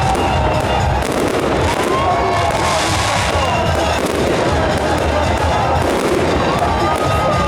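Fireworks display: repeated bangs and crackling of shells bursting, over music playing.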